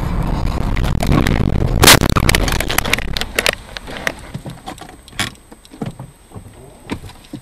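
Car crash heard from inside the car: engine and road noise grow louder, then a single very loud impact about two seconds in as the windshield cracks. A rapid cluster of sharp cracks and clinks follows for a second or two, then scattered single knocks.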